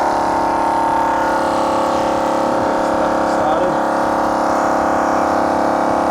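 12V piston air compressor running steadily at an even pitch, pumping up a flat tyre.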